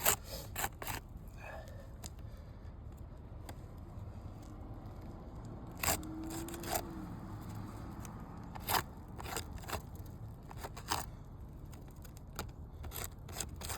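Brittle asphalt roof shingles crackling and scraping as they are handled, an irregular scatter of sharp, crisp clicks and crunches.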